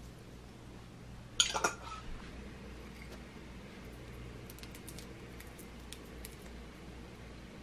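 A quick cluster of clinks from a metal utensil against dishware about a second and a half in. Later comes faint, scattered crinkling as the foil wrapper of a stock cube is peeled open.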